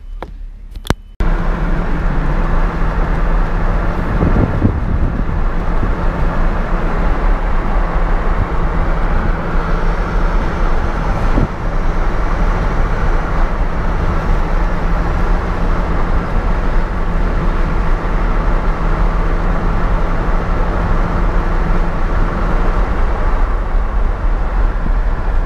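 Steady, loud road and wind noise of a moving car, picked up by a camera held at the side window. It starts abruptly about a second in.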